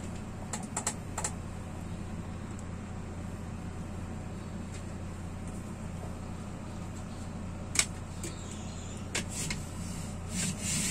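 Wick kerosene stove burning steadily with a low, even hum, broken by scattered light ticks and clicks; the sharpest comes about eight seconds in, and a small cluster of clicks falls near the end.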